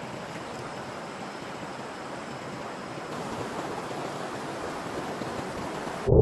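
Steady rushing of a shallow stream, an even hiss of flowing water with no distinct splashes.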